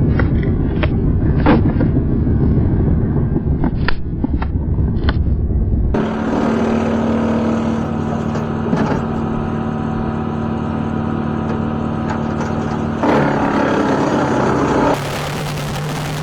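Diesel tractor engine running at a steady speed, with heavy low rumble and a few sharp knocks in the first part, and a change in the sound about 13 and 15 seconds in.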